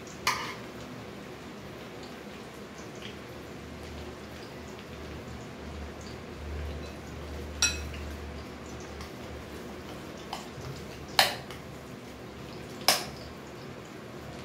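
Oil sizzling steadily as lauki kofta balls deep-fry in a kadhai, with four sharp clinks of kitchen utensils: one right at the start, then three more in the second half.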